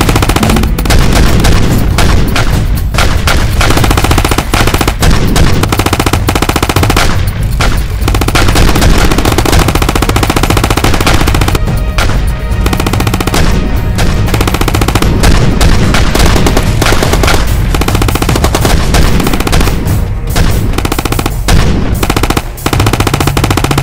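Gunfire, long stretches of rapid automatic rifle fire with a few short breaks, over background music.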